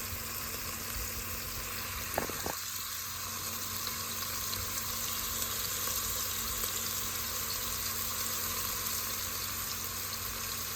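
Grated onion, garlic and spices frying in olive oil in a pan, a steady sizzle as the onion is left to soften. Two light knocks come a little after two seconds in.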